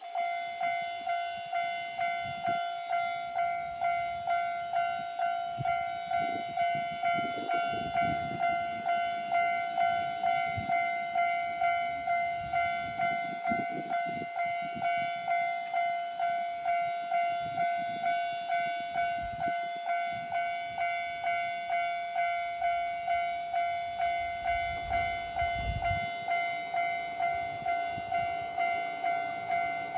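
Japanese railway level-crossing electronic warning bell: it starts abruptly and rings a steady, high-pitched 'kan-kan' about twice a second. Occasional low rumbles sound underneath.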